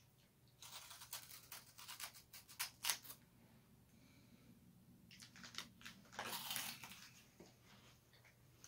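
A plastic snack wrapper on an Umaibo puff stick crinkling and tearing open in two bouts of short crackles, one about a second in and another around six seconds in.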